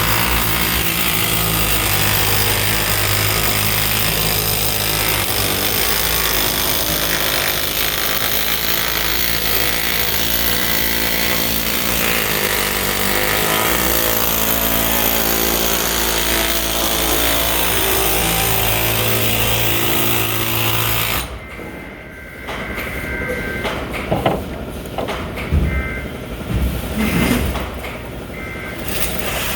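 Pneumatic air hammer working sheet-metal duct, a loud steady buzzing rattle that stops suddenly about two-thirds of the way through. Scattered knocks and clatter follow.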